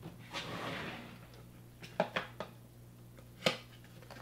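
Handling of a vinyl figure and its plastic display case: a soft rustle of packaging, then a few light clicks and taps of plastic, the sharpest about three and a half seconds in.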